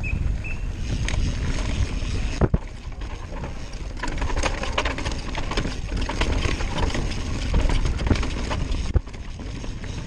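Cross-country mountain bike riding fast over rough dirt and rock: steady wind noise on the microphone over the rumble and rattle of the tyres and the bike. Two sharp knocks from impacts on the ground, about two and a half seconds in and again near the end.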